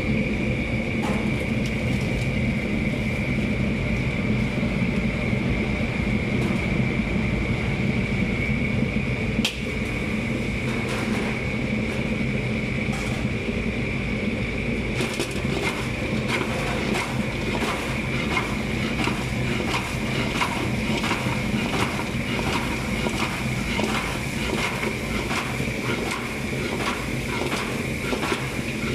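Gas wok-range burner running steadily under a large aluminium wok, with a constant high whine. From about halfway, a metal ladle scrapes and clatters in the wok over and over as chicken wings are tossed in the bubbling sauce.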